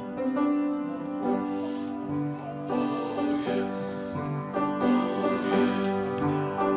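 Instrumental music with held chords that change about once a second.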